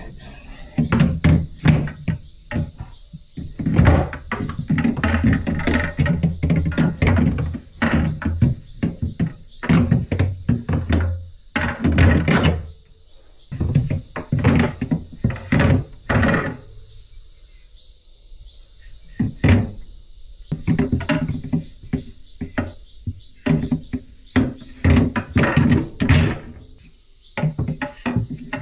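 Irregular knocks and thunks of objects being handled, coming in clusters with short quieter gaps, over background music.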